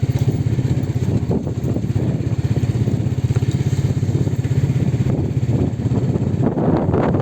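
A vehicle's engine running steadily with a rapid, even pulse, under some road noise.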